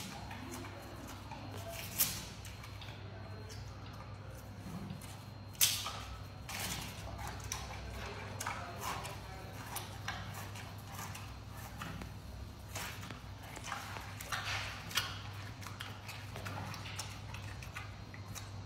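Giant panda eating bamboo shoots: irregular crunching and cracking as it bites and strips the stems, with two louder snaps about two and five and a half seconds in. A steady low hum runs underneath.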